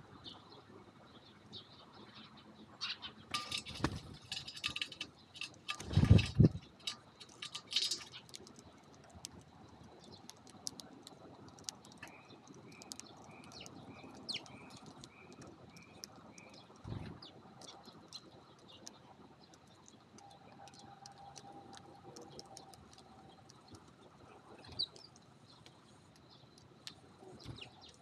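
Eurasian tree sparrows feeding on rice grains on a hard floor close by: small pecking clicks throughout, a flurry of wing flutter and thumps between about three and eight seconds in as more birds come in, and a run of about eight short chirps, roughly two a second, around the middle.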